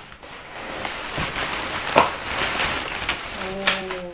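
Plastic wrapping and packing rustling and crinkling with small clicks as a potted plant in a plastic sleeve is pulled out of a cardboard box. A short hummed voice sound comes near the end.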